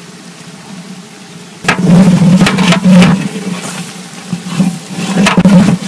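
A long ladle stirring and scraping through a spiced mixture of onions and pulses in a huge metal cooking pot, with repeated scrapes and knocks against the pot. This starts suddenly about a second and a half in, after a quieter steady low hum.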